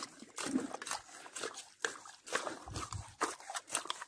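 Irregular sharp clicks and a few short wet squelches from soft mangrove mud.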